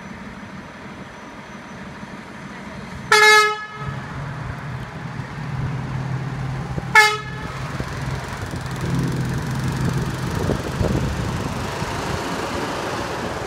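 Hi-rail welding truck sounding its horn twice, a toot of under a second about three seconds in and a brief one near the middle. Between and after the toots its engine runs steadily as the truck pulls off the rails onto the road.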